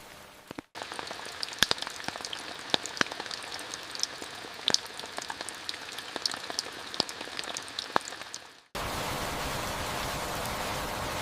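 Raindrops pattering on a surface, individual drops landing irregularly several times a second over a soft background hiss. About nine seconds in it cuts to a louder, steady hiss of rain without distinct drops.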